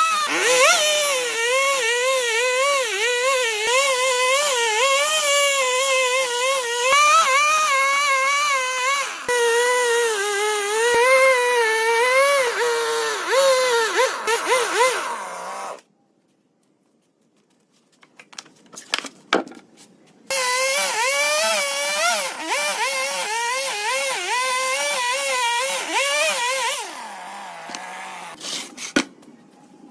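Handheld electric power tool running under load on wood, its motor pitch wavering as it cuts. It stops suddenly about halfway, a few knocks follow, then it runs again for several seconds and dies away near the end.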